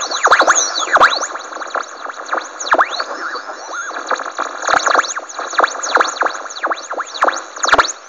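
Homemade two-transistor (2SK192A and BC547) super-regenerative radio receiver giving out a steady hiss with many quick whistles that swoop down in pitch and back up, one or two a second, with a quieter stretch about three seconds in: heterodyne squeals as it passes over stations.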